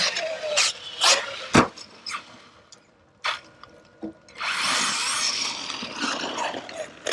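Traxxas Sledge 1/8-scale RC monster truck driving in mud: a few sharp knocks in the first couple of seconds, then its brushless electric motor whining under throttle with tyre and mud noise for the last few seconds.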